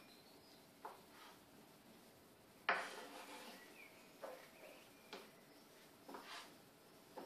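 Chef's knife chopping through smoked scamorza cheese and knocking on a wooden cutting board: about five light, separate chops at uneven intervals, the one near three seconds in the loudest.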